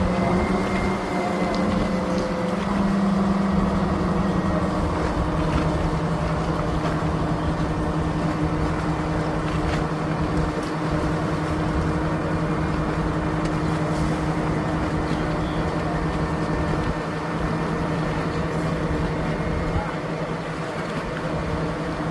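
Motorboat engine running steadily at an even pitch, over a constant background of wind and water noise.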